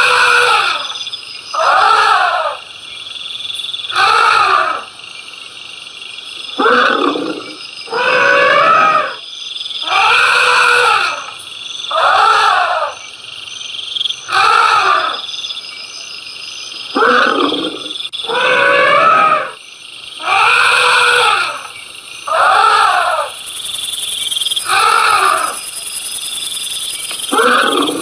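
An animal calling over and over, about one call every two seconds. Each call is a loud, pitched cry that rises and then falls.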